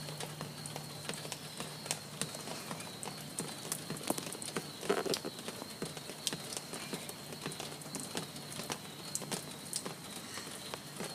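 Rainwater dripping after a heavy storm: irregular drops ticking and splashing onto wet surfaces, with a slightly louder splash about five seconds in.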